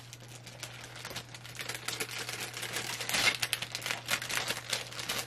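Plastic packaging of a diamond painting kit crinkling and rustling as it is handled, with many small sharp clicks and a louder burst of rustling about three seconds in.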